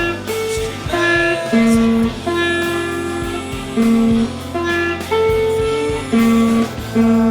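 Guitar music with no singing: a melody of held notes changing about every half second over a steady low bass.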